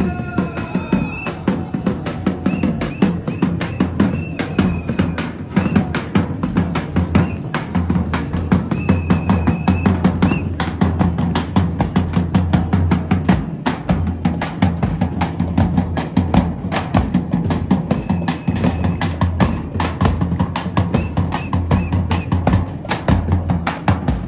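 Marching drummers beating large double-headed drums with sticks in a fast, continuous rhythm, with short high held notes now and then.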